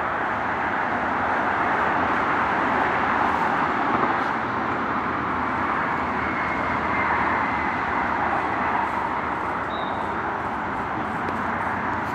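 Steady wash of highway traffic noise, an even rush of many vehicles without any single one standing out.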